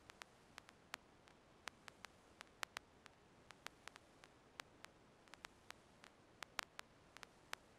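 Near silence: a faint hiss with many sharp clicks at uneven intervals, a few a second.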